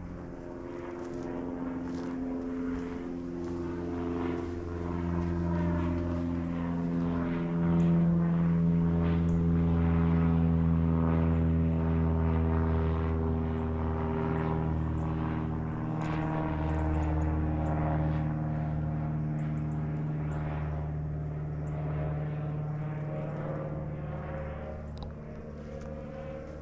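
Propeller aircraft passing overhead: a steady droning engine that swells to its loudest about a third of the way in, then slowly falls in pitch and fades away.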